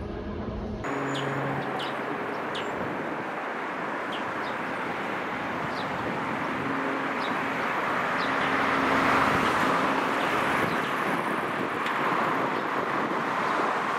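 Steady outdoor traffic noise that swells about eight seconds in and eases near the end, with short high chirps scattered through the first half.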